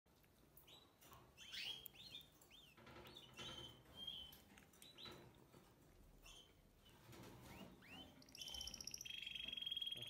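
Canary chicks begging at feeding with faint, short, high chirps that sweep up and down in pitch, coming every second or so. From about eight seconds in, a continuous rapid high-pitched trill takes over and grows louder.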